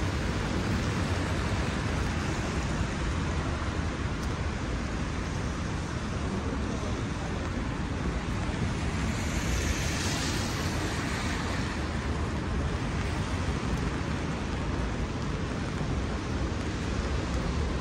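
Rainy city street ambience: a steady wash of rain and traffic on wet roads, with low wind rumble on the microphone. About ten seconds in, a hiss swells and fades as a vehicle's tyres pass on the wet road.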